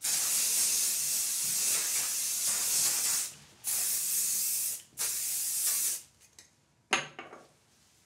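Aerosol spray can sprayed in three long hissing bursts, of about three seconds, then just over a second, then one second. A sharp clack with a brief ring follows about a second later.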